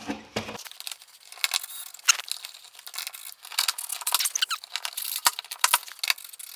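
Cordless drill-driver and small hardware making many short clicks and rattles while bolts are driven into a transducer bracket under a plastic kayak hull, with brief rising whirs of the drill about four seconds in.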